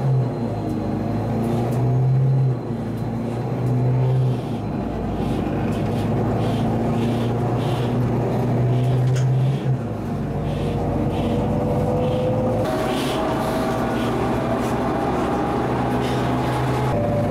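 City bus engine running, heard from inside the bus, its pitch stepping up and down and rising as the bus gathers speed, with light rattles over it.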